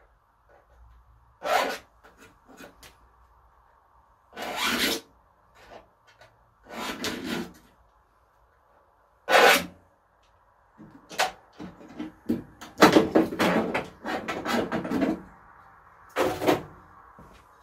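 Metal scriber scratching along steel sheet in a series of short, irregular strokes, marking the outline of a repair panel onto the car body for cutting.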